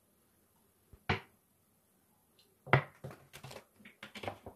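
Sharp knocks and clicks of cookware being handled while mustard oil is poured into an empty non-stick kadai: one knock about a second in, the loudest nearly three seconds in, then a run of lighter clicks.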